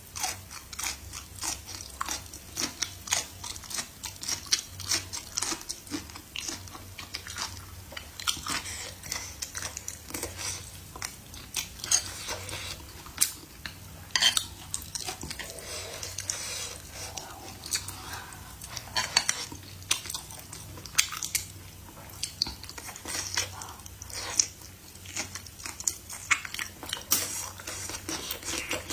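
A person chewing and biting food, with wet smacking and dense irregular clicks, and now and then a clink of a utensil on a dish.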